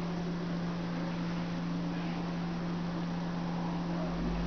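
Steady low electrical hum over a faint hiss: room tone. A soft low rumble comes in near the end.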